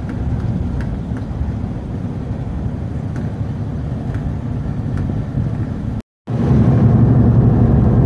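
Inside an intercity coach at highway speed: steady low engine and road rumble with a few faint ticks. The sound cuts out completely for a moment about six seconds in, then returns louder.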